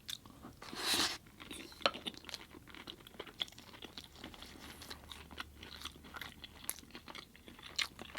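A person chewing food close to the microphone: many small, irregular wet mouth clicks and crunches. There is a short rush of noise about a second in.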